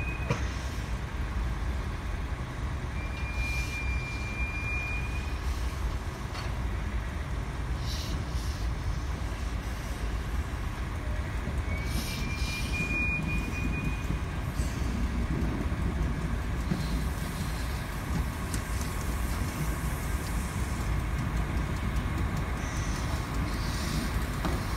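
Flying Scotsman, an LNER A3 steam locomotive, and its train of carriages arriving: a steady low rumble with two thin, high squeals of a few seconds each, the first about three seconds in and the second about twelve seconds in.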